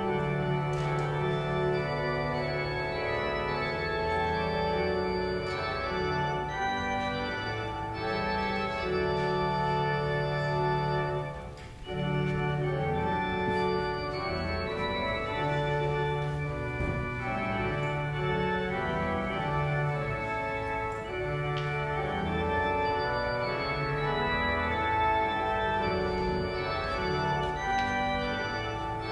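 Pipe organ playing a slow prelude of sustained, held chords, with a short break between phrases about twelve seconds in.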